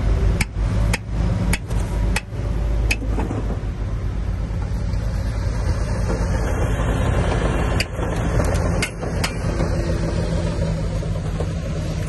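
Heavy earthmoving machine's diesel engine running steadily, with a series of sharp metallic knocks in the first few seconds and a few more near the end.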